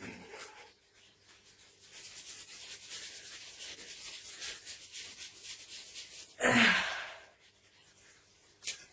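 A hand rubbing a wax strip down onto a hairy leg in quick, rhythmic strokes, a dry brushing sound. A short loud burst of noise comes about six seconds in.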